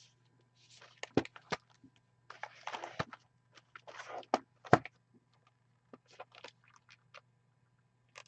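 Sealed card boxes being handled on a table: short scrapes and rustles with a few sharp knocks, over a steady low hum.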